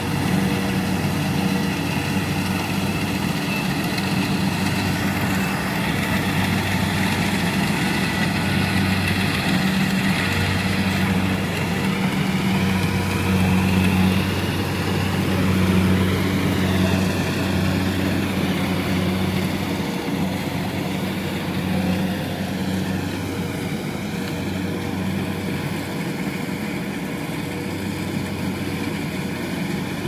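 Engine of a compact tracked rice combine harvester running steadily in the field, with a higher whine above the engine hum that slowly drifts up and down in pitch.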